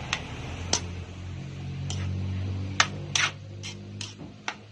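Kitchen utensils clicking and knocking against cookware, with about eight sharp taps scattered over a few seconds, the loudest near the three-second mark, over a low steady hum.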